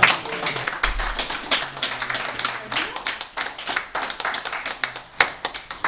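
A small group applauding by hand: many quick, separate claps that thin out towards the end.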